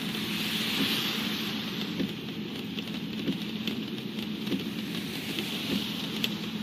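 Rain on a moving car heard from inside the cabin: a steady hiss of rain and wet road over a low hum of engine and tyres, with faint knocks about once a second.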